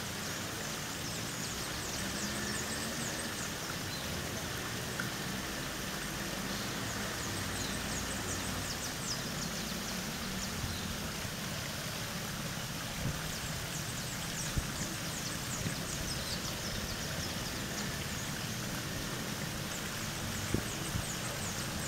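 Tiered stone fountain splashing steadily, with small birds chirping in quick high-pitched clusters several times over it and a few light taps.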